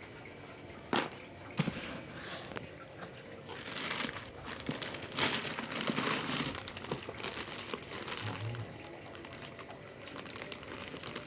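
Packaging crinkling and rustling as it is handled, in irregular bursts, with two sharp knocks near the start.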